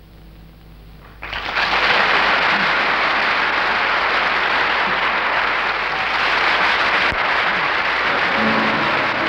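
The final notes of a classical guitar ringing faintly and dying away, then an audience breaking into loud, sustained applause about a second in.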